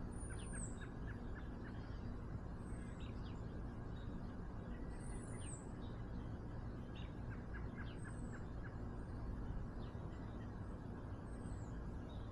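Birds chirping: a short high arched note comes back every two to three seconds, with quicker small chirps between, over a steady low background rumble.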